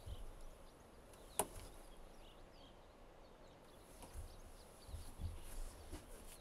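Faint night-time ambience with soft low rustles and thumps of a person shifting in bed, and one sharp click about a second and a half in.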